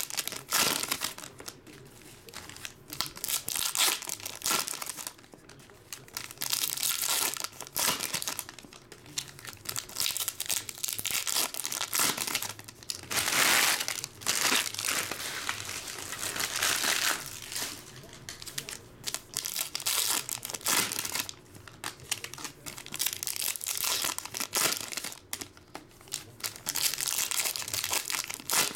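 Foil wrappers of Panini Hoops trading-card packs being torn open and crinkled by hand, in irregular bouts of crackling that come and go, loudest about halfway through.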